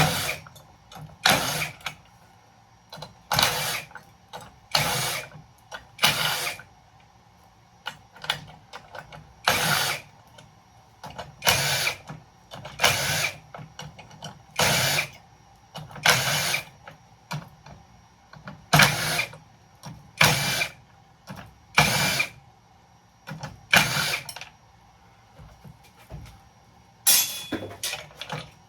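A hand-held power tool running in short bursts of about half a second, stopping and starting again every one to two seconds, as fasteners are worked out of scrap breaker boxes.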